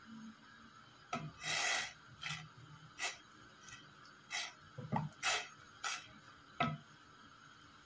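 Wooden spoon stirring water, mint leaves and an orange in a stainless steel pot: a run of swishes, splashes and scrapes starting about a second in, with short knocks of the spoon against the pot.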